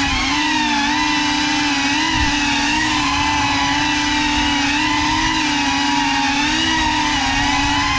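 Geprc Cinelog 35 FPV drone's motors and propellers whining steadily, the pitch wavering slightly up and down as the throttle changes.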